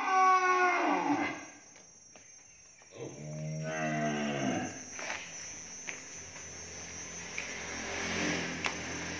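Cattle mooing twice: a falling moo right at the start, and a deeper, shorter one about three seconds in. After that the pen is quieter, with low steady background noise.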